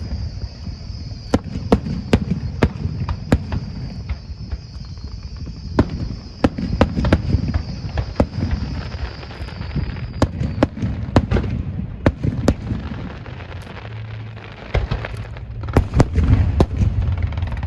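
Fireworks going off: a rapid, irregular string of sharp bangs over a continuous low rumble of booms, with a steady high whistle that stops about ten seconds in.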